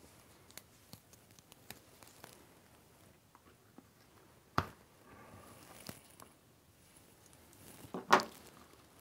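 Hand-stitching a leather sheath: small clicks and rustles as a stitching needle is worked back through the leather and drawn out with pliers. There is a sharp knock about halfway through and a louder, brief knock near the end.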